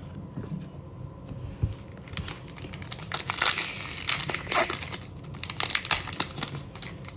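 Foil wrapper of an Upper Deck hockey card pack crinkling as it is handled and torn open, the crackling starting about two seconds in.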